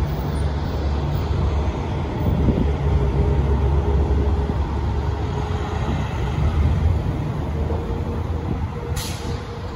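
Fire engine's diesel engine running with a steady low rumble as the truck pulls out of the station bay, with a short sharp hiss of air about nine seconds in.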